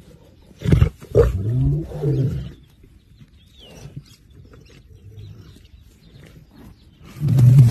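Lions calling: a short sharp burst, then a low drawn-out call about a second in, and another low call near the end, with quieter rustling between.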